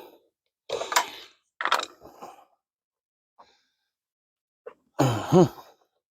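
A few short bursts of handling noise as hands work at the ATV's air intake, then a man's brief groan about five seconds in.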